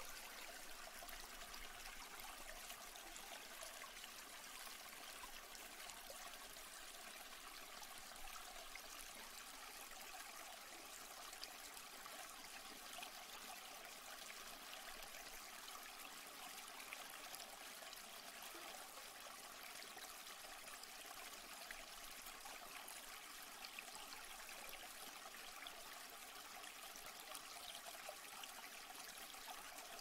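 A small stream flowing, a quiet, steady, even rush of water with no change.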